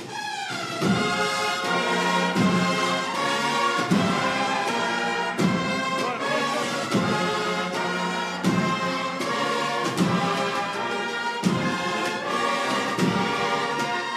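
Brass band playing a slow Holy Week processional march, with sustained brass chords over low drum strokes that fall about every second and a half.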